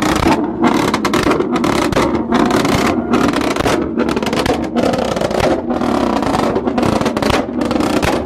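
A modified car's loud exhaust as its engine is revved hard in quick repeated blips, about two or three a second.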